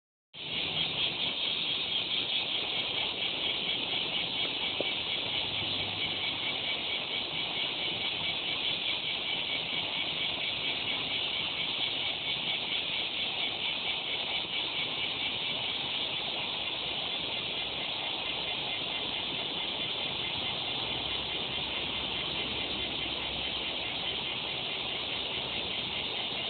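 Cicadas singing: a continuous high, shrill buzz that starts about half a second in, pulsing slightly at first and then holding steady.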